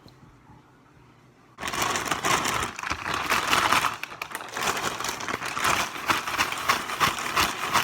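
A plastic bag holding fish strips and batter mix being shaken to coat them: a loud, rapid rustling and crinkling of plastic that starts suddenly about a second and a half in.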